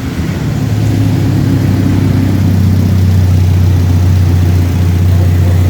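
Turbocharged Honda Civic engine idling steadily and loudly, a deep even drone that settles in the first second.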